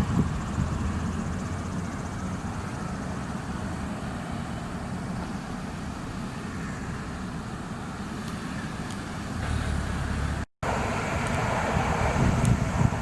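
Steady rumble of road traffic, vehicles passing, with a brief total dropout about ten seconds in where the recording cuts, after which the traffic is a little louder.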